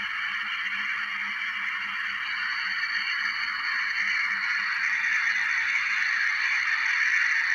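Jet engine noise from a landing Airbus A320-214 with CFM56-5B engines, heard from beside the runway: a steady high-pitched rushing sound that grows a little louder toward the end.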